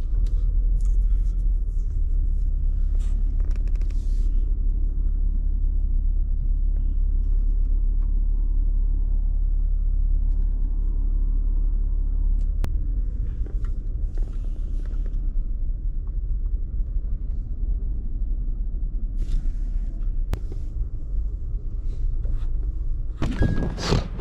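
Car driving: a steady low road rumble that eases somewhat about halfway through, with a short louder noise near the end.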